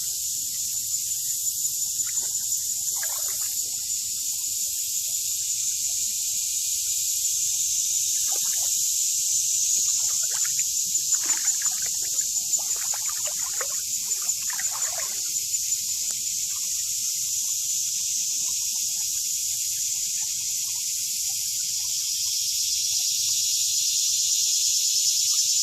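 Dense, steady, high-pitched insect chorus with a constant thin tone running through it. Several short rustles come about 2 to 3 s in and again around 10 to 15 s in.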